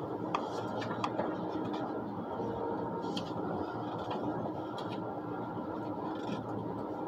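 Steady running noise inside the passenger cabin of an ICE high-speed train at speed, with a few faint clicks and rattles.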